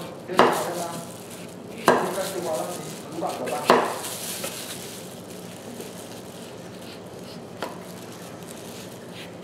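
Kitchen knocks: three sharp hits of a utensil on a hard surface about a second and a half apart, each with a short ring, then a fainter one a few seconds later, over a low steady hum.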